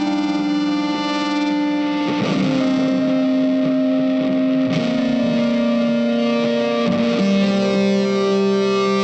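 Background music of slow, long-held notes, moving to a new note about every two and a half seconds.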